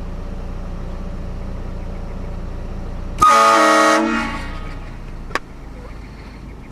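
Car-mounted HornBlasters Shocker train horn kit giving one short, loud blast of under a second about three seconds in: a chord of several steady tones that fades quickly. A sharp click follows about two seconds later.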